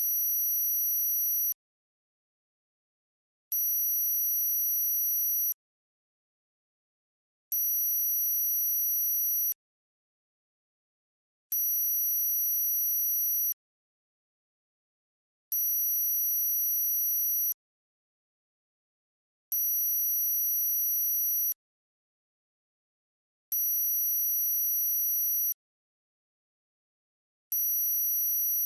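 Electronically generated high-pitched tinnitus-masking tone, pulsing on for about two seconds and off for about two seconds, evenly, with silence between pulses. Each pulse is a steady, very high whistle-like pitch.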